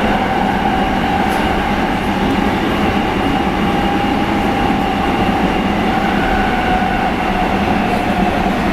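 Running noise inside a Nagoya subway Sakura-dori Line 6000 series car at speed: a steady rumble of wheels on rail with a steady motor whine that dips slightly in pitch near the end.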